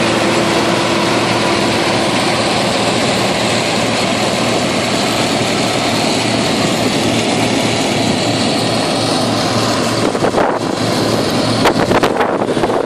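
Combine harvester running steadily: a continuous engine and machinery drone. From about ten seconds in, irregular clattering knocks come in on top.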